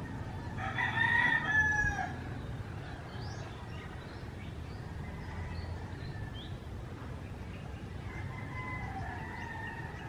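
Outdoor ambience with one long, loud bird call about a second in that falls in pitch at its end, a fainter call near the end, and small high chirps in between.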